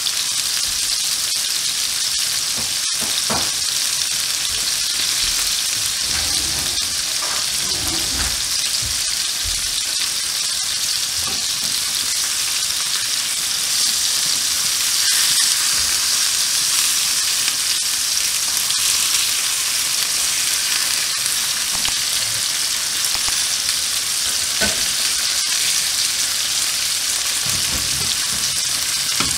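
Burger kebab patties sizzling steadily in melted butter and garlic in a hot ridged grill pan, cooking on their second side. The sizzle swells a little about halfway through.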